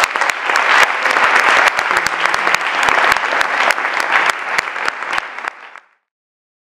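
Audience applauding: dense, steady clapping from many hands, fading and cutting off about six seconds in.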